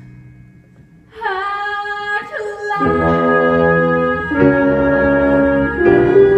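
Live pit orchestra music. A phrase dies away into a brief lull. About a second in, a single held melody note enters with a slight upward slide, and about three seconds in it is joined by full sustained chords.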